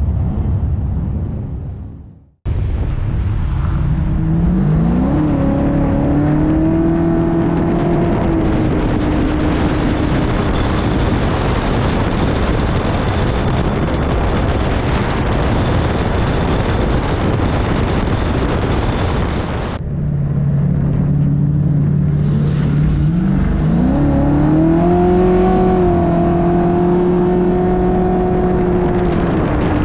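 Onboard sound of a Ford F-truck driven hard on a track: its engine climbs steeply in pitch and then holds at high revs, under a heavy hiss of wind and tyre noise on the microphone. The truck is sliding sideways with its rear tyres smoking. The sound cuts off abruptly twice, about 2 s and 20 s in, and the engine climbs and holds again after each cut.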